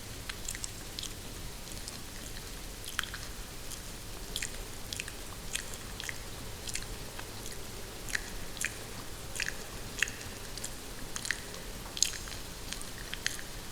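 Close-miked chewing and biting on a mouthful of hair: irregular crisp, wet clicks and crunches, a few a second, over a steady hiss of recorded rain.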